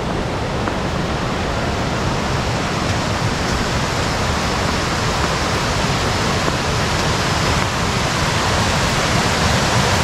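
Rushing water of a waterfall and rocky stream: a steady hiss that grows slowly louder.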